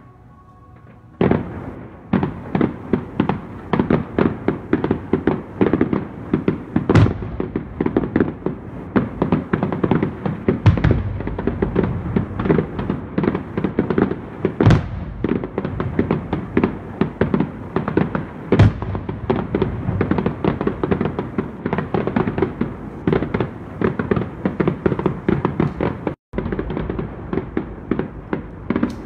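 Aerial fireworks display: after about a second of quiet, a dense barrage of rapid bangs and pops starts and keeps going, with a few louder booms standing out. The sound cuts out briefly near the end.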